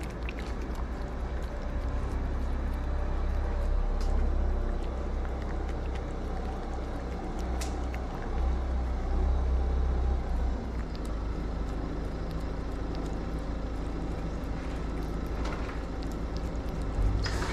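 A mother cat and kitten chewing and licking wet cat food from a plate close by, heard as scattered small clicks over a low, uneven rumble.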